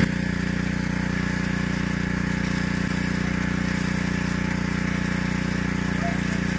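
Small engine of a well-jetting rig running steadily at a constant speed, driving water down the well bore.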